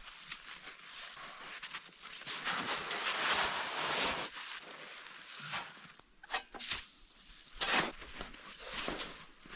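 Irregular crunching and scraping in snow, with a few sharper louder strokes in the second half.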